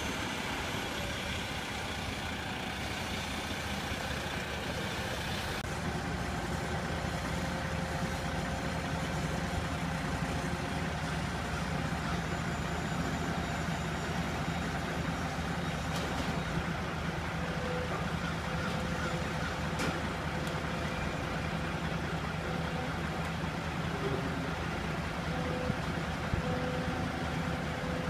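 A semi truck's diesel engine running as it pulls up. After a cut about five seconds in, it is followed by the steady running of a Caterpillar 299D XHP compact track loader's diesel engine as the loader lifts steel framing off the flatbed with its forks.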